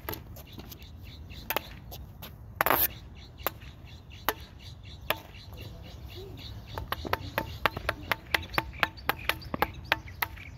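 Sharp plastic taps of a hollow yellow wiffle ball bat against the pavement. A few come scattered at first, then a quick run of about four to five taps a second in the second half.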